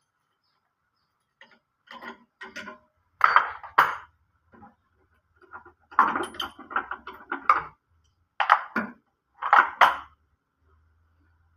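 Irregular bursts of metallic clinks and knocks, in clusters of several quick strokes, from handling tools and metal parts.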